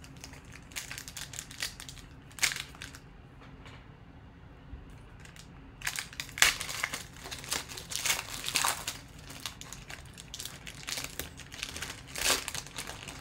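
Foil trading card pack wrappers crinkling as hands work them open: irregular crackly rustles, sparse at first and much busier from about six seconds in.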